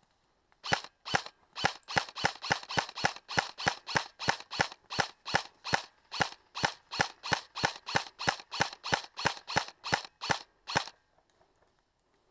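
Airsoft gun firing single shots in quick, steady succession, about three a second, some thirty sharp shots over about ten seconds before stopping.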